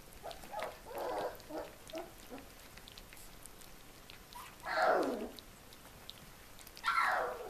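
Four-week-old collie puppies feeding together from one bowl of minced meat, with small eating noises, then two louder puppy cries about two seconds apart, each falling in pitch.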